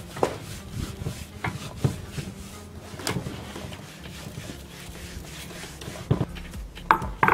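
Hands rubbing a dry spice and salt rub into raw pork belly in a stainless steel tray: soft, irregular scratching and patting strokes, with a few sharper scrapes near the end.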